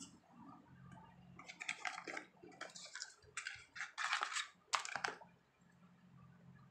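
Crinkling and rustling as a cream tube and its packaging are handled, in several short bursts from about a second and a half in until about five seconds in.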